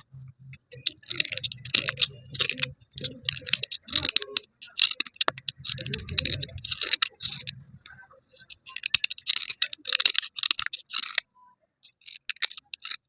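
Broken slate pencil pieces being rubbed dry, making bursts of gritty scraping and clicking a second or two long, with short pauses between.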